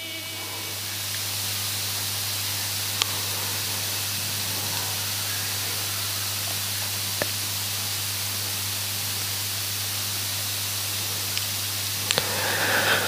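Steady hiss and a low, even hum from the recording chain of a microphone setup, the noise floor left bare during a pause in the recitation. A few faint clicks break it.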